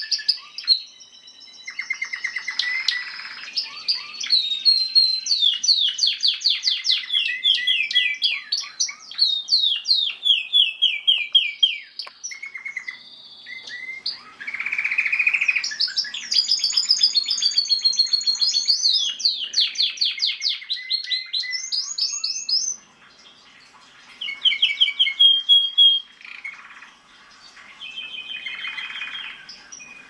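Domestic canary singing a long, varied song of fast trills and rapidly repeated notes, high-pitched, with a short break about two-thirds of the way through.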